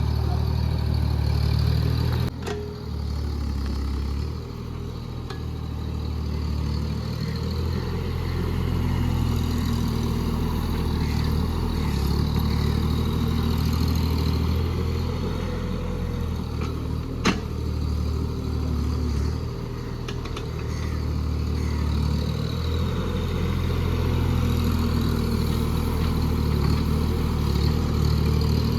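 JCB JS30 Plus mini excavator's diesel engine running steadily under working load, its level swelling and easing as the machine digs. Two sharp knocks come through, one about two seconds in and one after about seventeen seconds.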